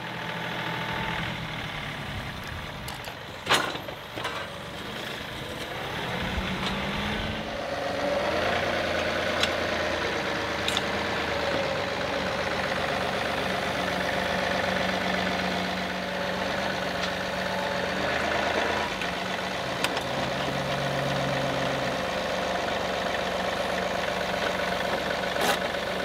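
John Deere 2038R compact tractor's three-cylinder diesel running while the tractor is manoeuvred under its backhoe attachment, the engine speed rising a few seconds in and then holding steady. A sharp knock comes about three and a half seconds in, and a few lighter clicks follow later.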